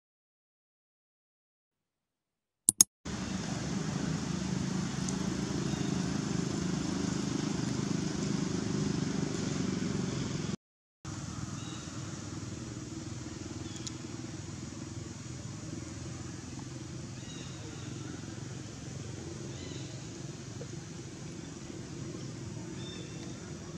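Silence, then two quick clicks about three seconds in, followed by a steady low rumble of outdoor background noise. The rumble cuts out briefly near the middle and comes back quieter, with a few faint high chirps over it.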